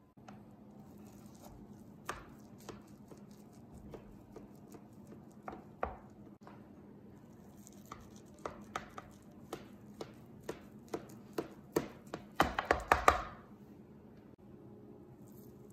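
Kitchen knife cutting a walnut cake in a metal baking pan, making a series of sharp taps and clicks as the blade meets the pan. The taps are sparse at first, come more often after the middle, and end in a quick, loud run near the end.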